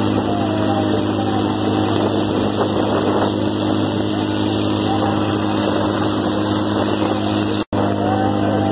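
A fishing boat's engine running steadily under way, a constant low hum with wind and water rushing past. The sound cuts out for an instant near the end.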